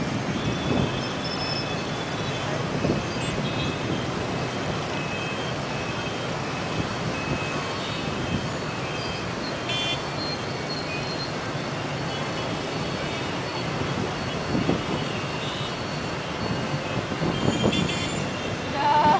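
Dense motorbike and scooter traffic: a steady din of many small engines, with frequent short horn beeps and a louder surge near the end.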